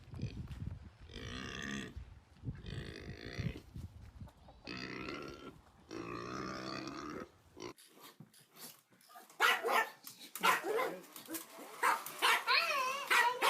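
An animal calling: several drawn-out low calls, each about a second long. These are followed by sharp clicks and higher, wavering cries near the end.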